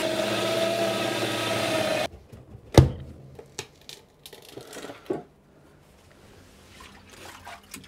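An electric power tool's motor running steadily with a high whine, cutting off about two seconds in. Then a single sharp knock, followed by scattered light clicks and taps.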